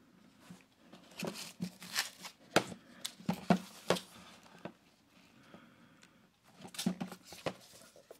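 DVD hardboxes being handled: a series of sharp clicks, taps and rustles, most of them about one to four seconds in and again around seven seconds in, as a case is turned over and another is brought up.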